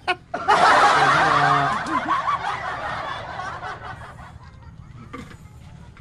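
A group of men laughing together: a loud burst about half a second in that dies away over the next few seconds.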